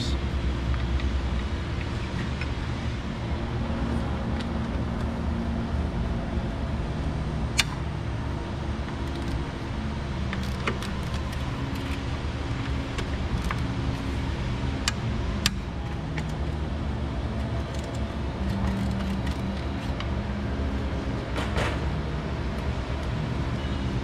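A few sharp metallic clicks and taps of hand tools working on the engine's crankshaft and connecting rods, over a steady low hum.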